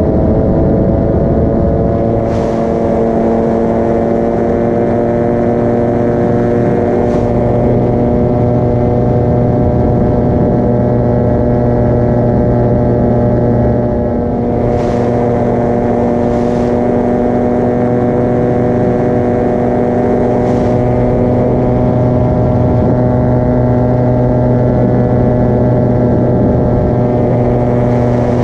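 Paramotor engine and propeller running steadily under power, its pitch creeping up slightly over the first couple of seconds and then holding.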